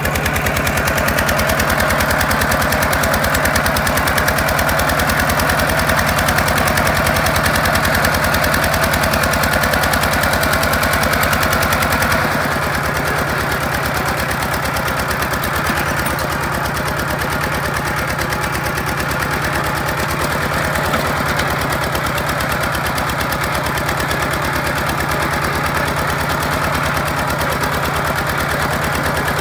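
Single-cylinder diesel engine of a Kubota two-wheel walking tractor running under load while it tows a trailer, with a rapid, even beat. About halfway through it drops a little in level.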